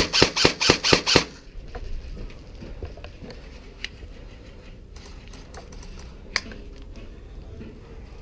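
Airsoft gun firing a quick string of about six sharp shots, roughly five a second, stopping about a second in. Faint scattered clicks and rustling follow.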